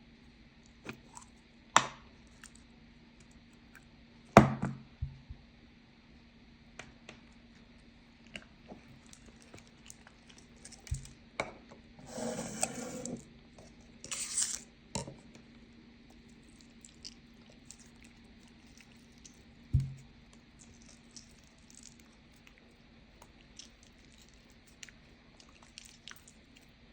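Scattered clicks, taps and light knocks of small objects being handled on a hard surface, with two short rustling or scraping noises about halfway through.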